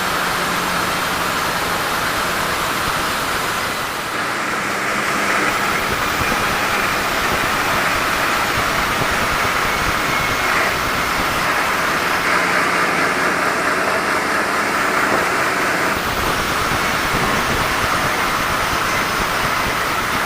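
Sawmill saw running and cutting through mahogany timber, a loud steady mechanical noise that changes in tone about four seconds in and again near sixteen seconds.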